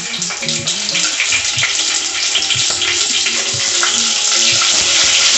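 Hot oil sizzling and crackling with many small pops as green chillies fry in a mustard-seed, cumin and curry-leaf tempering in a steel pot, getting slightly louder toward the end.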